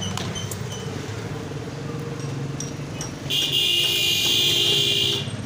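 Steady rumble of traffic with a vehicle engine running. About three seconds in, a loud buzzing horn sounds for about two seconds and is the loudest thing heard.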